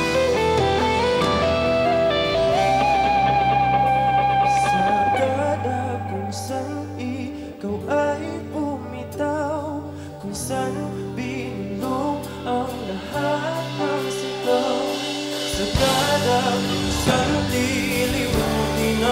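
Live pop-rock band playing with electric guitars, bass and drums. A held, bending lead line rings over the full band for the first few seconds, then the band drops to a softer passage with a male voice singing. The full band comes back in loud about three-quarters of the way through.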